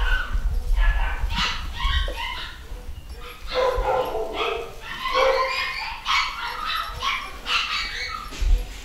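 Scottish Terrier puppies yipping and whimpering: a steady run of short, high-pitched calls, one after another.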